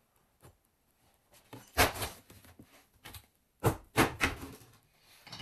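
Empty cardboard carton handled and tossed aside: a loud sharp knock about two seconds in, then three quicker knocks and thumps of cardboard around the four-second mark.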